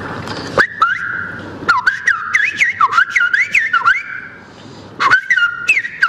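A man whistling an imitation of the song of a straw-headed bulbul (cucak rawa), a prized Indonesian songbird. The whistle holds one high note broken by quick swoops up and down. It pauses briefly about four seconds in, then resumes.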